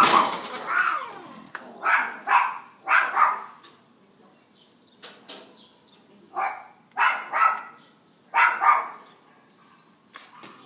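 Animal calls in short, loud bursts, several coming in quick pairs, with a pause of about two seconds midway.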